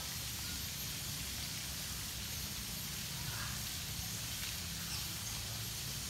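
Steady outdoor ambience: an even hiss with a low rumble underneath, and a few faint, short high calls around the middle.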